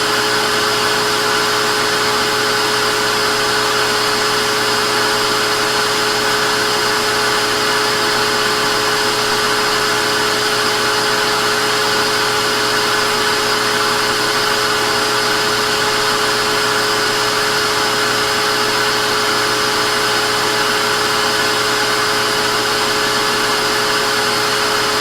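Vacuum cleaner running steadily: a constant motor whine over a rush of air, unchanging throughout.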